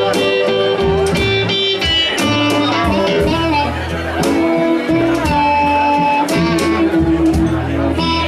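A live band of electric guitar, bass, drums and harmonica playing an instrumental break, with long bending lead notes over a steady beat.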